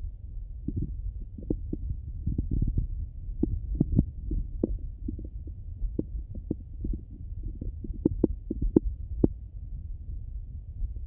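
Bowel sounds of a hungry stomach heard through an electronic stethoscope: irregular short clicks and small gurgles over a steady low hum.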